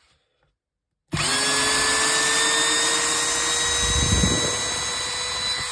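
Parkside Performance PABSP 20-Li C2 cordless brushless drill/driver driving a wood screw. The motor starts about a second in with a steady whine, labours harder a few seconds in as the screw bites, and slows near the end.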